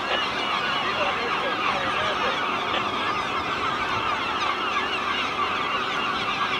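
A large flock of gulls calling all at once, many short cries overlapping into a continuous chorus.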